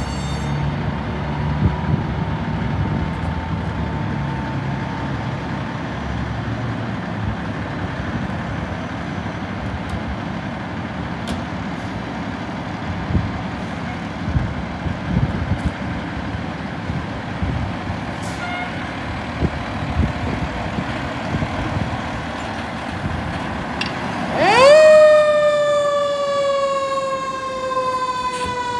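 Fire apparatus engines running in the station with a low rumble and scattered knocks. About 24 seconds in, a fire engine's siren winds up sharply, then falls slowly in pitch.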